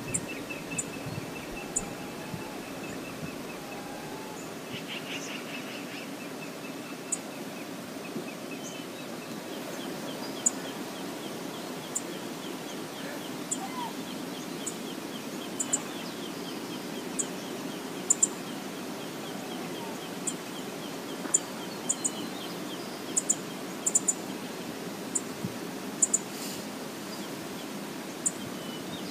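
Steady rush of a waterfall on a salmon river. A bird's faint rapid call comes and goes, and sharp high clicks are scattered through it.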